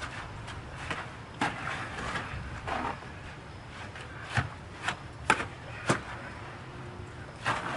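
Irregular knocks and scrapes of hand work on a building job: about six sharp strikes spread unevenly, with a scraping sound between them.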